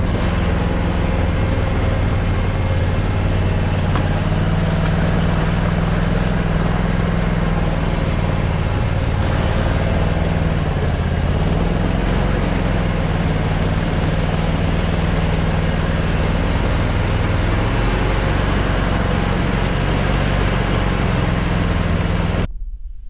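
Engine of an Argo Aurora 8x8 950 Huntmaster amphibious ATV on half tracks running steadily under way, its pitch wavering slightly. It cuts off suddenly near the end.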